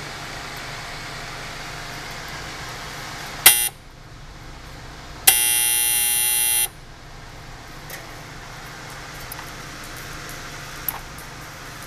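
Cook-timer buzzer on a Blodgett Mark V convection oven, sounding as the timer knob is turned to zero: one short buzz about three seconds in, then a longer, louder buzz of about a second and a half, over the steady hum of the oven's fan.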